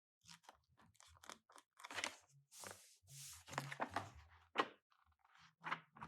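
Crinkling and rustling of paper and plastic as a planner and its packaging are handled, in short irregular strokes. Faint low notes of a bass guitar being practised in another room come and go underneath.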